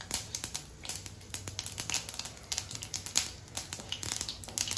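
Mustard seeds popping and spluttering in hot oil in an iron kadai during tempering: irregular sharp crackles, several a second, over a faint sizzle.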